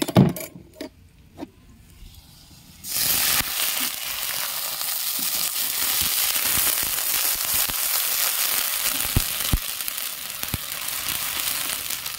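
A few metal clinks, then about three seconds in sliced onion goes into hot oil in a kadai and sets up a loud, steady sizzle of frying.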